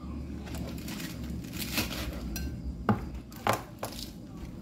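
Kitchen dishes and utensils being handled, giving about five sharp clinks and knocks, mostly in the second half, as food is put into a bowl. A low steady hum runs underneath.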